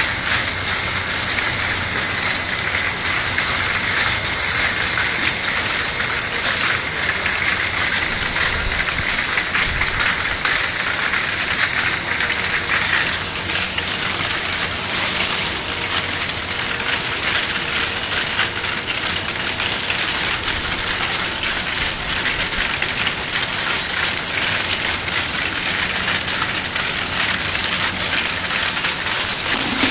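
External vial washing machine for 50 ml vials running: a steady, loud hiss laced with fine, rapid clicking.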